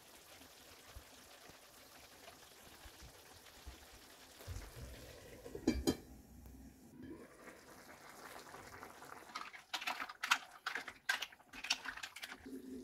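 Mussels simmering in spicy sauce in a frying pan, a faint steady bubbling hiss. Just before six seconds in a stainless steel lid clanks down onto the pan, and near the end the mussel shells clack against each other and the pan as a wooden spoon stirs them.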